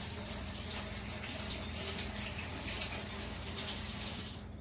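Kitchen faucet running steadily while hands are rinsed under it, a continuous rush of water that stops shortly before the end.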